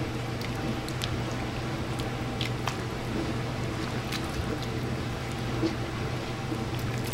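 Red silicone slotted spoon stirring thick, creamy chicken noodle soup in an enamelled pot: soft squishing and sloshing with a few light clicks of the spoon, over a steady low hum.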